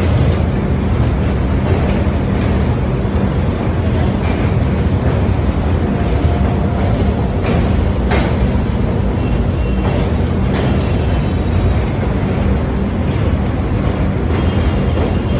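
Express train coaches running slowly across a steel truss bridge: a steady low rumble of wheels on the bridge track, with a few sharp clicks about halfway through.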